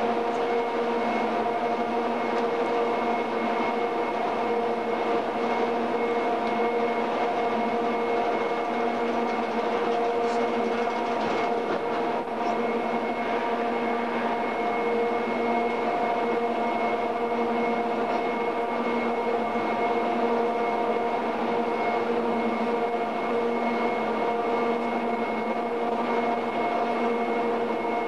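Steady mechanical drone holding several fixed tones, unchanging in pitch and level, in a railway bogie-exchange shed.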